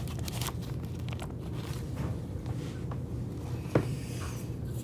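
Faint handling noise of trading cards being sorted into piles: soft scrapes and light taps, with one sharper tap about three-quarters of the way through, over a steady low hum.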